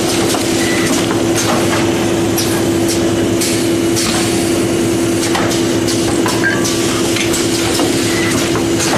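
A4 paper-ream overwrapping machine running: a steady mechanical hum with one constant tone, broken by frequent irregular clacks and knocks from its feeding and folding mechanisms.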